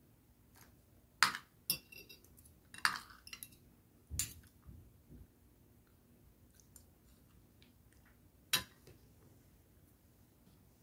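Metal spoon and fork clinking and scraping against a plate while eating: scattered sharp clinks, a cluster in the first few seconds and a last single clink about eight and a half seconds in.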